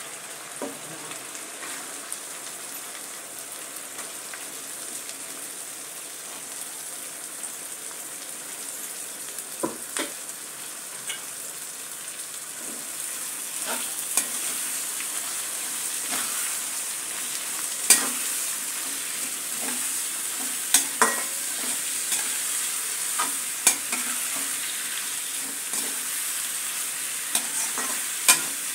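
Cabbage frying in a pan with a steady sizzle that grows a little louder about halfway through. It is being stirred, and a utensil knocks and scrapes against the pan at irregular moments, more often in the second half.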